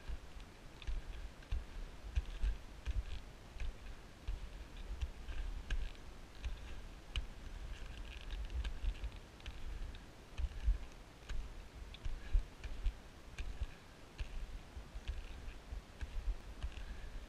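Skiing downhill through deep powder snow, recorded by a body-worn camera: an uneven low muffled rumble from the run, with many irregular light clicks and ticks throughout.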